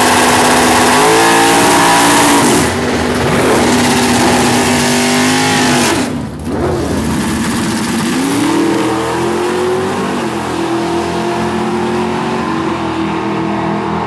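Fox-body Ford Mustang drag car doing a burnout, its engine held at high revs with a few blips while the rear tyre spins and smokes. After a short break, drag cars launch and the engine note rises as they accelerate, then runs on steadily as they pull away down the strip.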